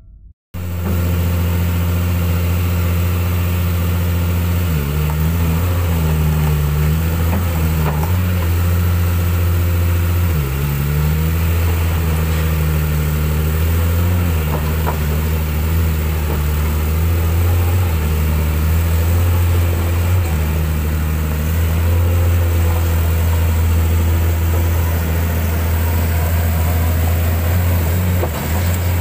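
Diesel engine of a 20-tonne crawler excavator running steadily, its pitch dipping and recovering a few times, about five seconds in and again around ten seconds.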